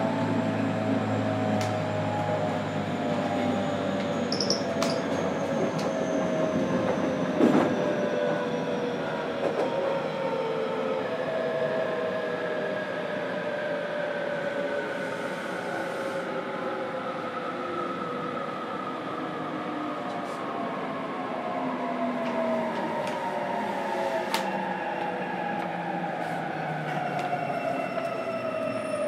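JR Kyushu 817 series electric train's Hitachi IGBT inverter and traction motors whining, heard from inside the motor car over rail rumble, the tones falling slowly in pitch as the train slows. A sharp knock about seven seconds in.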